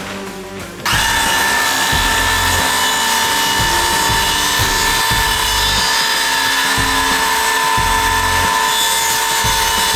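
An electric circular saw starts up about a second in and runs at a steady, loud whine, cutting through wood.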